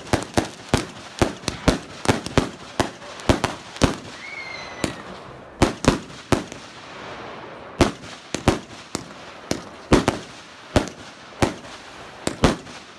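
Fireworks going off: a rapid, irregular string of sharp bangs and pops from aerial bursts and firecrackers, several a second at times, easing into short lulls around the middle before picking up again.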